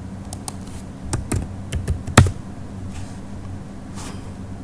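Computer keyboard typing: a dozen or so scattered key taps, one sharper and louder about two seconds in, over a steady low electrical hum.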